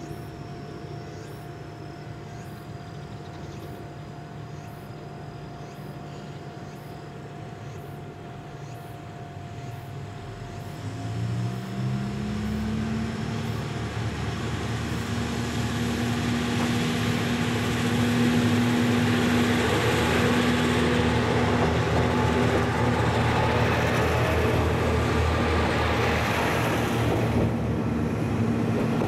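A diesel railcar's engine idling, then revving up about ten seconds in as the railcar pulls away, settling into a loud steady drone with rising running noise.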